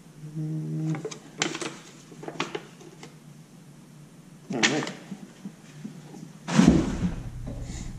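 A man's short wordless vocal sounds: a hum about half a second in and another brief one about four and a half seconds in. Light paper rustling comes between them, and a louder handling noise follows about six and a half seconds in.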